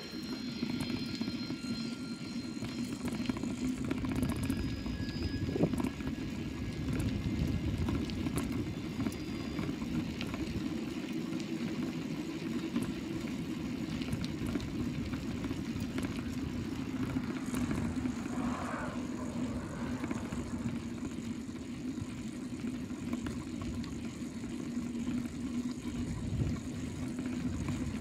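Steady wind and tyre noise from a bicycle rolling along an asphalt road, with a continuous low hum.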